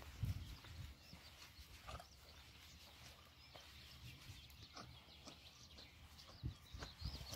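Faint birdsong, with small wavering chirps that keep repeating, and a couple of soft low thumps near the end.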